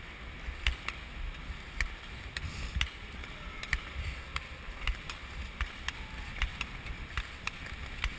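Speed skates striding on ice: sharp, irregular clicks of the blades striking and pushing off, over a steady low wind rumble on the microphone of the moving skater.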